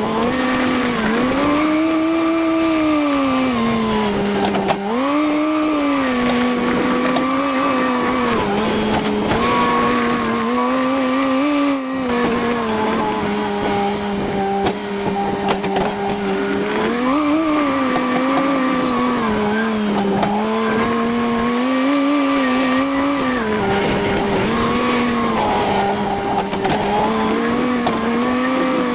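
Tractor engine running, its pitch rising and falling in repeated swells every few seconds as the engine speeds up and settles back.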